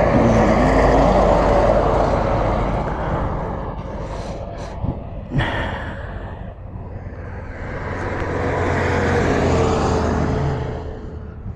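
Road traffic passing at speed: a heavy truck goes by loudly at the start, its engine and tyre noise fading over a few seconds, and a second vehicle's noise swells and fades again near the end, with a short sharp click in between.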